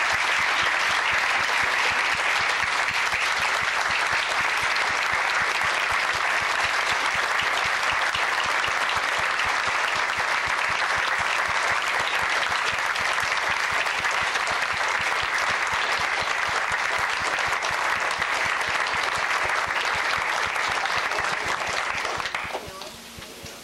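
Audience giving a standing ovation: loud, steady applause that drops off sharply near the end, leaving a few voices.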